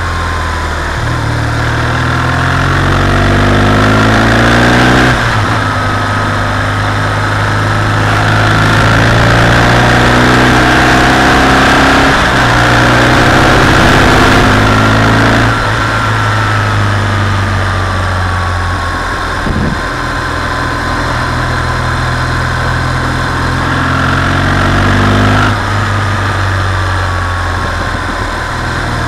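BMW R 1200 GS flat-twin boxer engine under way, its note climbing steadily under throttle and falling back sharply three times: about five seconds in, midway and near the end. A steady rush of wind noise runs under it.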